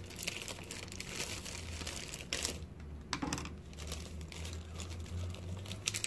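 Crinkling and rustling of something being handled off camera, with scattered small clicks, over a steady low hum.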